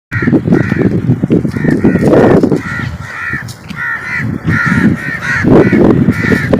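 Harsh bird calls repeated two to three times a second, with steady low rumbling noise underneath.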